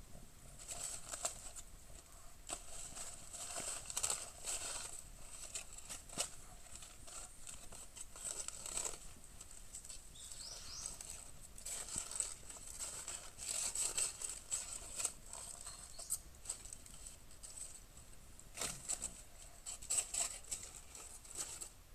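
Aluminium foil crinkling and rustling in irregular bursts as a foil-wrapped baked sweet potato is handled and unwrapped.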